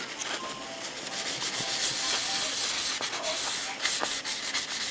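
A 4000-grade Mr. Laplos polishing cloth rubbing over the painted plastic body of a model car, a soft, steady scuffing hiss as the paint surface is buffed smooth.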